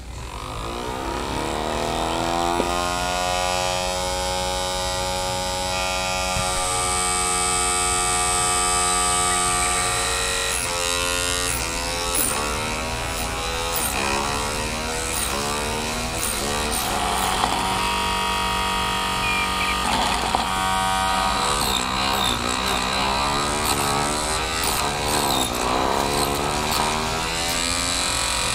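Homemade miniature chop saw's small electric motor switched on with a click, whining up to speed over a few seconds. From about ten seconds in, its pitch repeatedly wavers and dips as the spinning blade cuts through green twigs.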